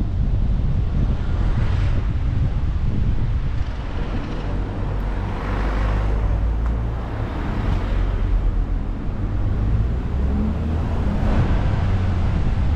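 Driving noise from a moving car: a steady low wind rumble on the microphone with road noise, and several rushes of passing traffic that swell and fade.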